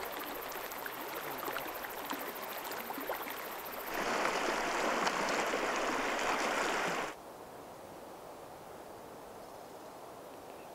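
Flowing river water, a steady rush. About four seconds in it turns into a louder, closer rush of shallow stream water that cuts off abruptly about three seconds later, leaving a faint steady hiss.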